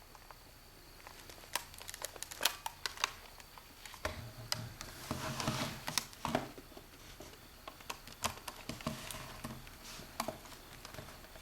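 Hands handling a small plastic camcorder: scattered sharp clicks and knocks, with a stretch of rustling and fumbling about five seconds in.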